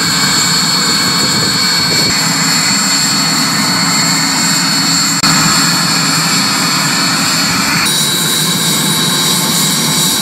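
Turbine engine of an Indian Air Force Chetak (Alouette III) helicopter running on the ground: a loud, steady rushing noise with a constant high-pitched whine. About eight seconds in, the whine shifts slightly lower in pitch.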